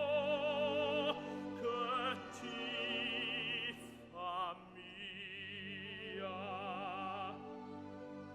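Orchestral opera music with a strongly wavering vibrato in the melody over sustained lower notes, growing gradually quieter.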